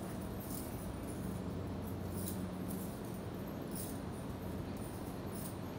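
Steady low hum of a large hall's room tone, with faint scattered rustles and clicks from a group of people moving through an arm exercise.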